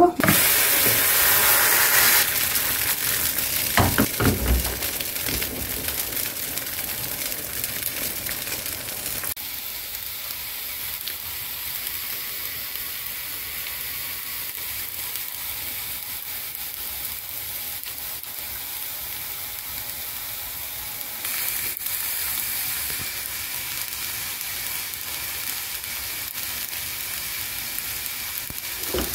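Thin pancake frying in a pan: a steady sizzling hiss, with a couple of short knocks about four seconds in.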